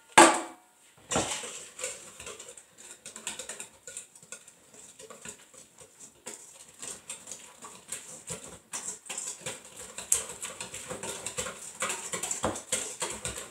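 Wire whisk beating a batter of eggs, milk and flour in a stainless steel mixing bowl: a fast, uneven patter of light ticks and scrapes against the metal, with one louder clank just after the start.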